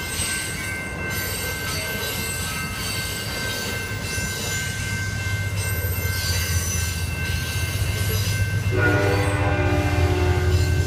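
A passenger train rolling slowly past with a steady high wheel squeal. About nine seconds in, a diesel locomotive's horn starts a long chord over a low engine rumble that keeps growing louder.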